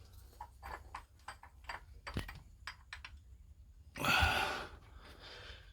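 Light clicks and taps of a small tool and metal parts being handled on an engine, with a short, louder rush of noise about four seconds in.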